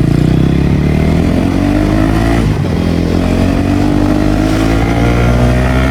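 KTM Duke 250 Gen 3's single-cylinder engine accelerating under way, its pitch rising. It shifts up a gear about two and a half seconds in, then climbs again.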